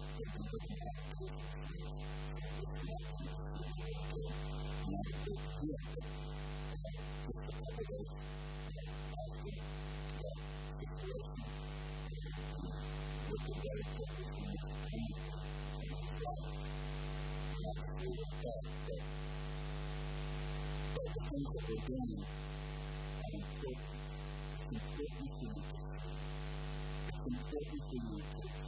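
Steady electrical mains hum with a ladder of buzzing overtones, loud in the audio feed, over a faint talking voice.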